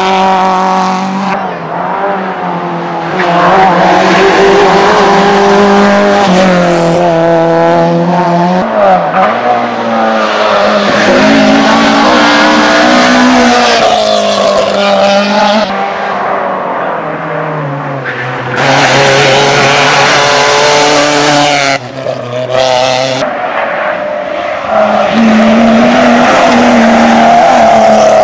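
Several rally cars in turn, each revving hard through a corner, the engine pitch climbing and dropping with throttle and gear changes, with tyre squeal as they slide.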